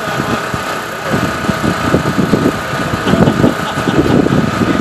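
A steady mechanical hum from a motor or engine, with uneven low-pitched noise swelling and fading beneath it.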